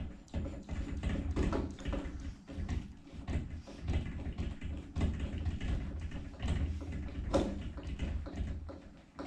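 Screws being driven by hand into the top of a metal sliding patio door frame: irregular clicks, scrapes and creaks of the screwdriver and hardware, with handling rubs close to the microphone.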